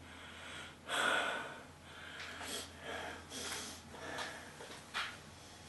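A man breathing in and out noisily through his nose, several short sniffing breaths, the strongest about a second in, as he smells incense in a small room. A single sharp tick comes near the end.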